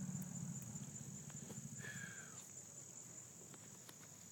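A steady, high-pitched insect chorus trilling without a break. A faint, short falling call sounds about two seconds in.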